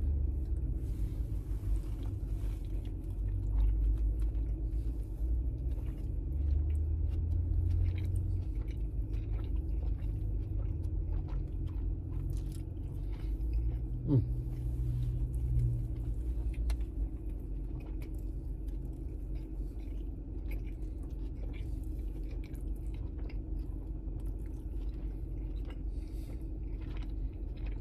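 A man chewing mouthfuls of burger with soft, irregular mouth clicks and smacks. A steady low rumble and hum of the car cabin runs underneath.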